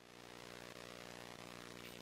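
A steady, low-level motor hum with even overtones and a light hiss over it, from surgical equipment running.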